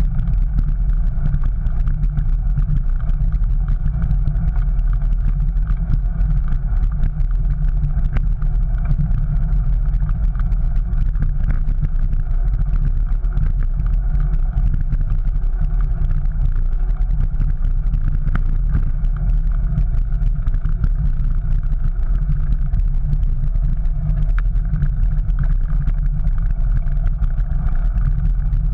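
Steady low rumble of a bicycle rolling over paving stones, recorded by a GoPro mounted on the bike. Wind on the microphone and tyre vibration on the pavers blend into one constant noise.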